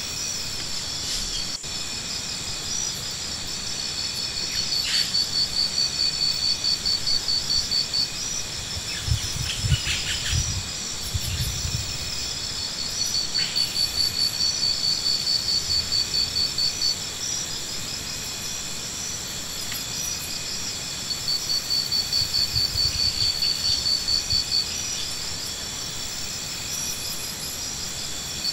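Insects chirping: a high, rapidly pulsed trill that comes three times, each lasting about four seconds, over a steady high hum. A few low thumps sound about nine to twelve seconds in.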